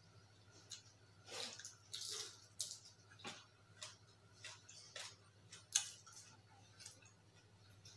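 Eating by hand: fingers mixing and scooping rice and dal on plates, with chewing and lip smacks, heard as irregular soft clicks and swishes. One sharper click comes about three-quarters of the way through.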